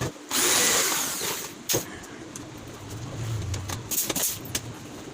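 A power tool runs loudly for about a second, then several sharp clicks and knocks follow as parts of a wooden flight case are worked on.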